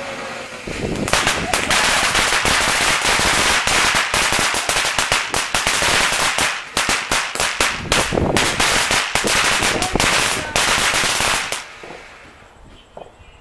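Ground fountain firework crackling: a rapid, dense string of loud pops starts about a second in and carries on for about ten seconds before dying away near the end.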